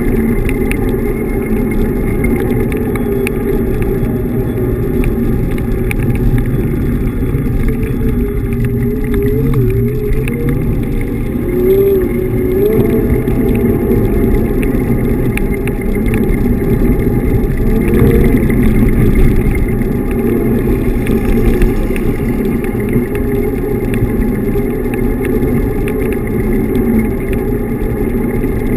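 Steady ride noise from a Xiaomi M365 Pro electric scooter rolling along: a dense low rumble with a thin whine that wanders up and down in pitch.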